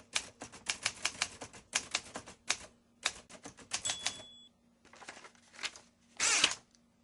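Manual typewriter sound effect: keys clacking in quick runs, a short bell ding about four seconds in, and a louder scraping sweep of the carriage about six seconds in.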